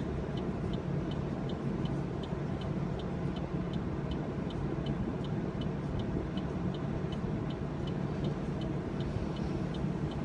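Steady low hum inside a car cabin, with the engine running. Over it is a light, regular tick about three times a second.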